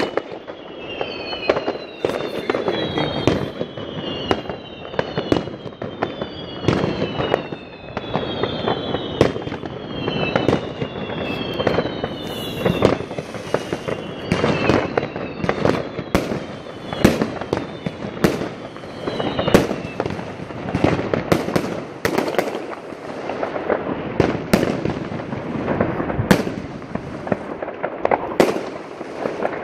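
Consumer New Year's fireworks going off all around: a dense, continuous run of sharp bangs and crackling from aerial shells and firecrackers. A repeating falling whistle sounds about once a second and stops about two thirds of the way through.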